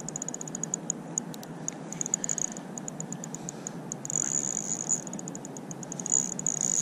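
Spinning reel's drag clicking as a hooked trout pulls line on light two-pound line: quick runs of high ticks that blur into a continuous buzz about four seconds in and again near the end.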